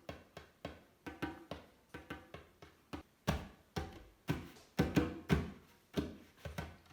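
Djembe played by hand, a steady rhythm of about three to four strokes a second mixing deep bass tones with sharper slaps, played quietly.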